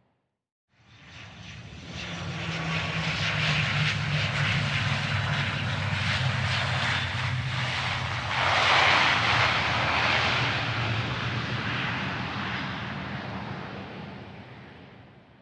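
Airplane landing, passing close by: its engine noise swells in after a brief silence, is loudest about nine seconds in, and fades away, with a low steady hum under the rushing noise.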